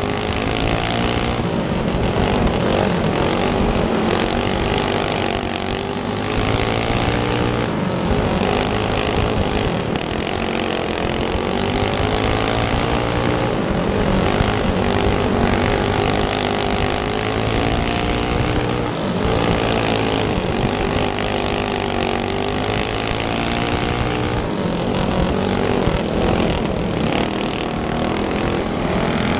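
Racing go-kart's single-cylinder clone engine heard from on board at full race pace, its pitch rising and falling again and again as it lifts into the turns and pulls out of them, under a steady rush of wind on the microphone.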